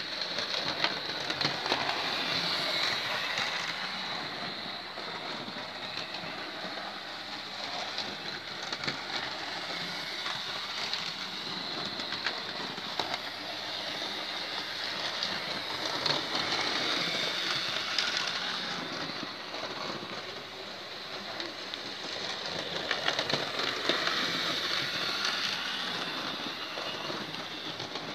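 Hornby OO-gauge model locomotive running around the track: its small electric motor whirring and its wheels clicking along the rails. The sound grows louder and fainter as the locomotive comes near and moves away around the layout.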